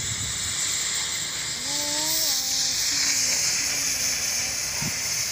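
Oxy-fuel cutting torch hissing steadily as its flame cuts through steel plate.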